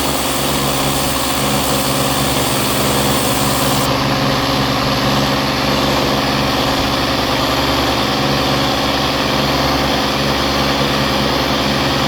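Steady motor hum with a hiss of spraying water as a pond drum filter's screen is washed clean; the highest part of the hiss drops away about four seconds in.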